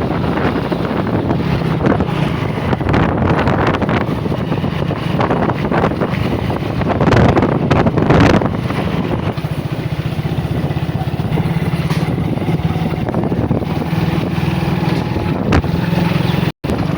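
Motorcycle engine running steadily while being ridden, with wind buffeting the microphone. The sound cuts out for a moment near the end.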